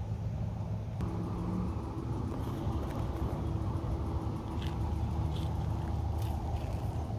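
A vehicle engine running steadily with a low hum; a further steady tone joins about a second in.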